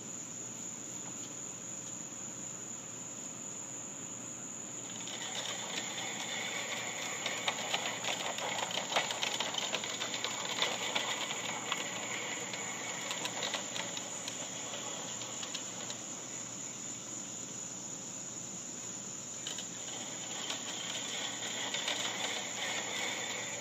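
Fiskars StaySharp Max 18-inch push reel mower cutting overgrown grass. It makes a quiet, dense clicking and whirring run from about five seconds in, eases off after about fourteen seconds, and picks up again near the end. Crickets chirp steadily throughout.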